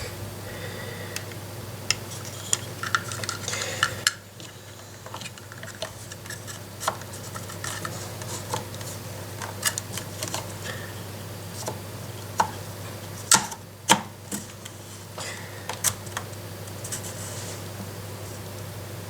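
Scattered light clicks and taps of hands handling the plastic pistol grip and motor wiring of an airsoft electric gun, as the cables are seated into the grip. A steady low hum runs underneath.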